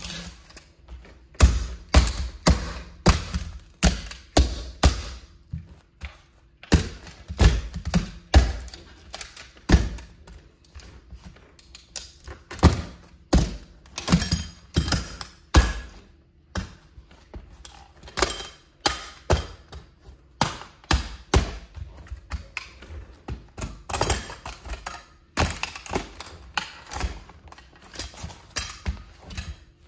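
A toy Plymouth Prowler car being crushed under a platform high-heeled sandal: repeated thuds of the shoe stamping down, with the cracking of the toy's body and parts as they break. The blows come about one or two a second, with a few short pauses.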